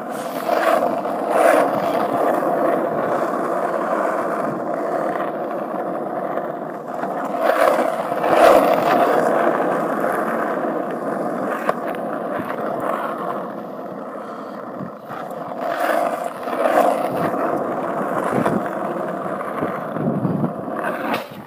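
Skateboard wheels rolling over rough asphalt: a steady rumble that swells louder a few times along the way.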